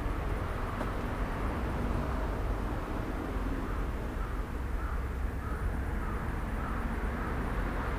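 Outdoor background noise: a steady low rumble, with a run of short bird calls about halfway through.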